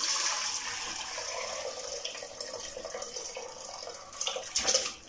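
Mutton cooking broth poured from a bowl into an aluminium pressure cooker pot: a steady splashing stream of liquid. Near the end come two louder splashes as the pieces of boiled mutton are tipped in.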